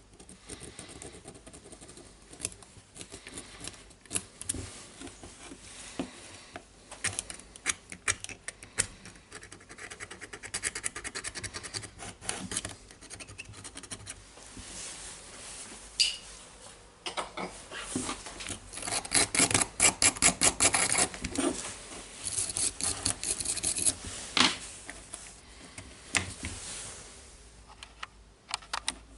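Scraping and scrubbing on a Makita cordless drill's metal battery contact terminal to clean off corrosion: irregular runs of quick scratchy strokes, fastest and loudest about two-thirds of the way through.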